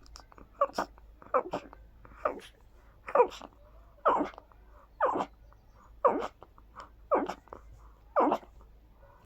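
A person sneezing in a rapid fit into hands cupped around the nose, set off by perfume. There are about ten sharp sneezes, roughly one a second.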